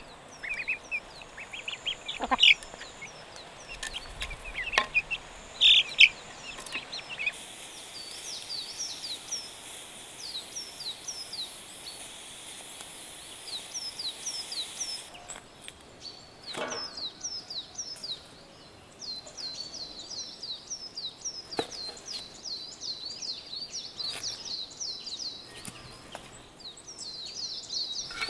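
Chickens calling, with a few loud calls in the first six seconds, then a long run of quick, high chirps that fall in pitch, several a second. A few faint knocks are scattered through it.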